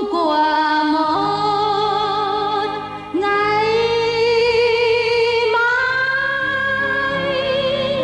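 A Vietnamese song: a woman sings a few long, held notes with wide vibrato over instrumental backing, stepping up in pitch through the phrase.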